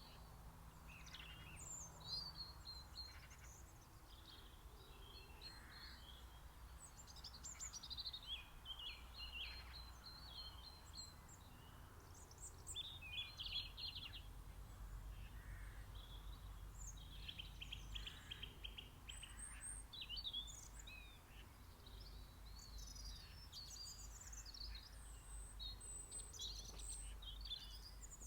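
Mixed spring birdsong chorus: many overlapping chirps, trills and song phrases from several small songbirds, over a faint steady low rumble.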